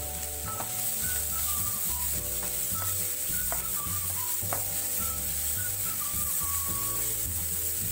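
Chopped onions and green chilli sizzling in oil in a non-stick pan while a wooden spatula stirs them, over background music with a stepping bass line and a falling melody that repeats.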